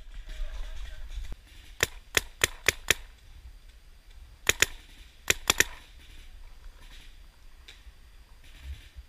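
Paintball marker firing in quick bursts: five sharp shots within about a second starting two seconds in, then two more, then three more a little before the middle.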